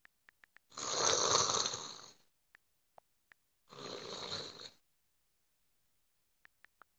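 A person making two snoring sounds, the first about a second and a half long and the second about a second, with faint phone keyboard taps clicking between them and again near the end.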